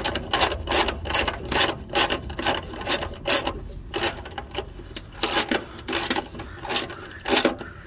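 A hand socket ratchet clicking steadily, about four clicks a second, as it runs the engine's motor mount bolts down through the mower deck.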